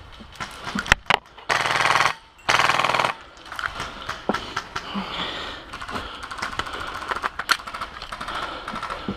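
Airsoft rifle firing two short full-auto bursts, about half a second each, one starting about a second and a half in and the next just under a second later. Scattered sharp clicks and knocks come before and after the bursts.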